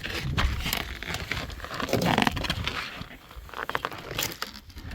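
Irregular crunching and rustling of snow, with a few light knocks.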